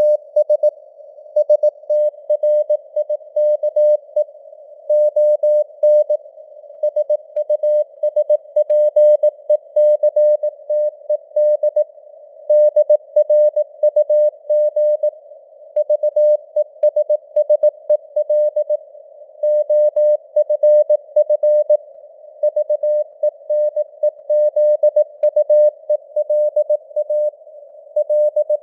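Computer-generated Morse code (CW) at 18 words per minute: a single mid-pitched tone keyed on and off in dots and dashes, with gaps between letters and words. Under it is a narrow band of simulated radio receiver hiss.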